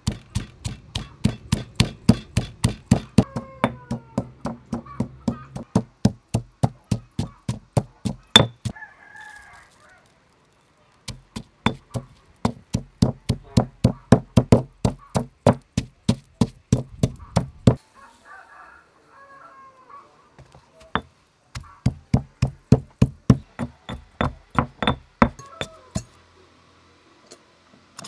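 Stone pestle pounding chilies and salt in a stone mortar, dull knocks at about four strikes a second in three runs with short pauses between.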